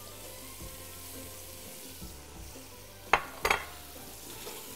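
Tomato and spice base sizzling steadily in an aluminium pot on a gas burner, nearly done. A little past three seconds in come two sharp knocks on the pot, close together.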